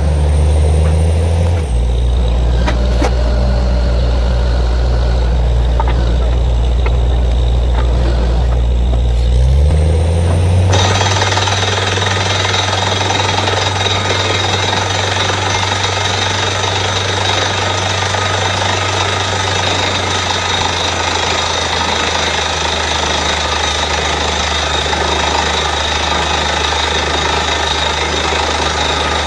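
Borewell drilling rig running: its engine drones while the down-the-hole hammer drills, the engine pitch shifting about two seconds in and again about ten seconds in. A steady, loud hiss joins about eleven seconds in.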